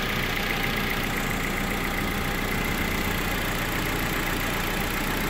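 Hyundai Genesis 2.0 Turbo's turbocharged four-cylinder engine idling steadily after a head gasket replacement, which the owner takes to be running fine.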